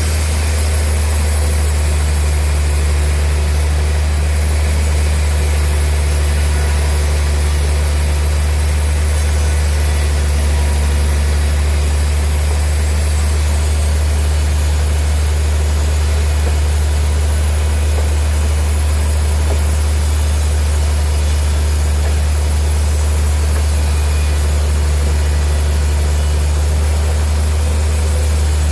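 Sawmill machinery running steadily: a constant low drone with no change in pitch and no cuts or knocks standing out.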